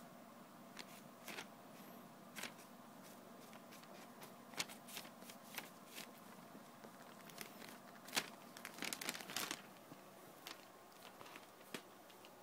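Newspaper pages crinkling and rustling faintly in short scattered crackles as cats shift on them, with a denser run of rustling about eight to nine and a half seconds in.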